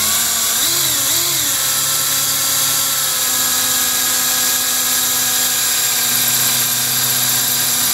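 Power drill running steadily under load, a 5/32-inch bit boring into a pin-tumbler lock cylinder just above the keyway to break through the pins. The motor pitch wavers briefly about a second in, then holds steady.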